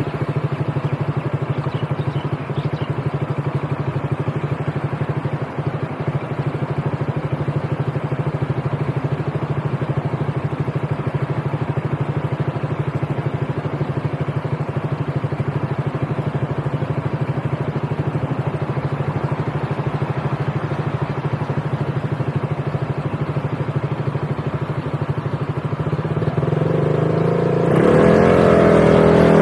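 Motorbike engine running steadily at a cruise, then getting louder with a rising pitch near the end as it accelerates.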